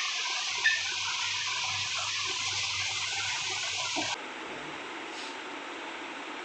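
Steady hiss with a faint low hum, changing abruptly to a duller, lower hiss about four seconds in.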